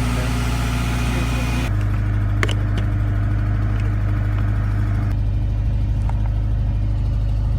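Subaru engine idling steadily, with a single sharp click about two and a half seconds in.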